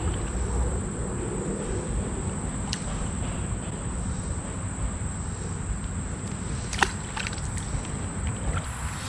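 Summer creekside ambience: a steady high-pitched insect drone over an uneven low rumble, with a sharp click about seven seconds in.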